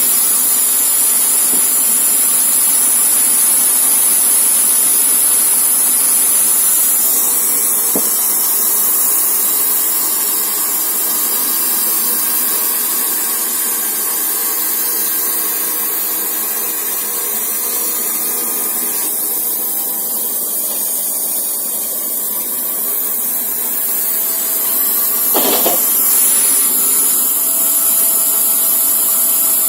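Wood-Mizer LT40 Super Hydraulic band sawmill running, a loud, steady machine noise with a high-pitched whine.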